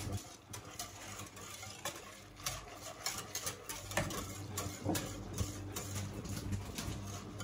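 Wire whisk stirring milk in a stainless steel saucepan, its wires ticking and scraping irregularly against the side and bottom of the pan.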